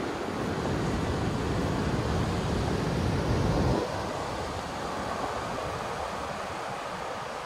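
Wind buffeting the microphone as a low rumble over a steady rushing hiss; the rumble cuts off abruptly a little over halfway through, leaving the lighter hiss.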